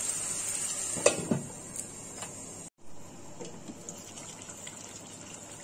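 Chicken korma gravy sizzling and simmering in a hot kadai, a steady hiss, with two sharp knocks about a second in. After a brief cut near the middle the sizzle goes on more quietly.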